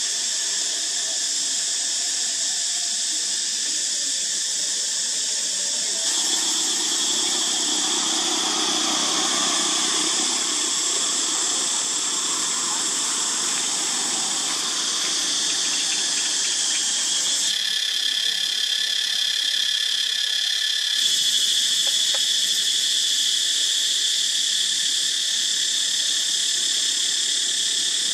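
A loud chorus of cicadas: a steady, shrill, high-pitched drone whose tone shifts abruptly a few times.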